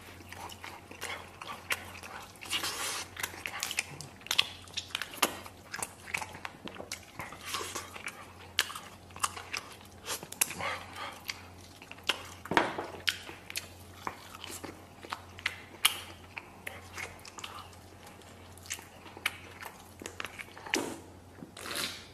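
A man biting into and chewing fried chicken close to the microphone: many short, irregular wet smacking clicks of mouth and teeth.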